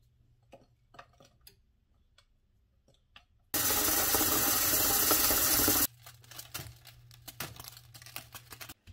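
Tap water running hard into a stainless steel saucepan for about two seconds, starting and stopping abruptly. Before it come a few small clicks and taps; after it, faint crackling from the pot of foamy liquid bubbling on the stove.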